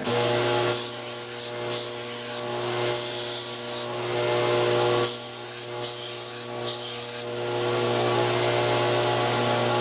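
An electric bench power tool runs with a steady hum, and a knife or handle is pressed against it in six separate passes, each heard as a hissing rub that starts and stops over about the first seven seconds. This is finish work on a 5160 steel knife with a curly maple and acrylic handle.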